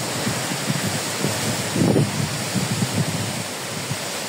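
Hurricane wind gusting through palm trees and bush, a steady rush with gusts buffeting the phone's microphone, strongest about two seconds in.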